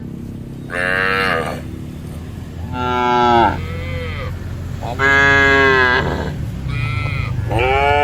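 Cattle mooing: about five drawn-out calls in turn, over a steady low background rumble.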